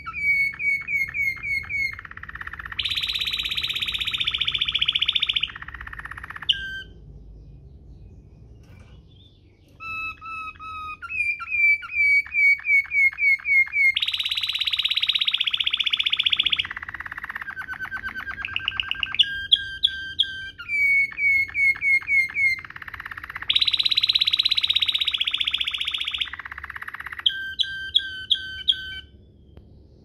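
Domestic canary singing a rolling song in the Waterslager style: phrases of rapid repeated notes alternate with long, dense rolls held for two to three seconds each. The song breaks off for a few seconds about a third of the way in, then resumes with the same pattern twice more.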